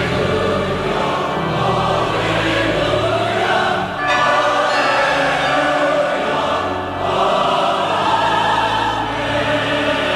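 A choir singing in sustained chords over a steady low accompaniment, with brief breaks between phrases about four and seven seconds in.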